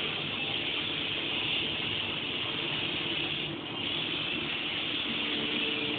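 Compressed-air paint spray gun hissing steadily as it sprays a car body, with a short dip about three and a half seconds in.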